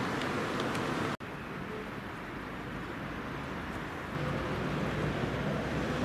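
Outdoor street ambience with steady traffic noise. A vehicle engine hum rises about four seconds in, and the sound cuts out for an instant about a second in.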